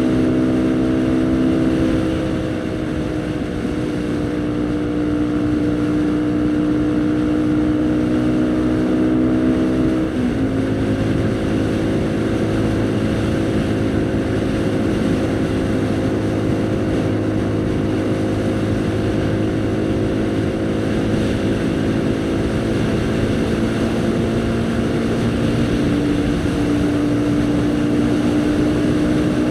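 Haojue NK150 motorcycle engine running steadily while riding, with wind rush over the microphone. About ten seconds in the engine note breaks briefly and steps down in pitch, as on a gear change, and it climbs a little again near the end.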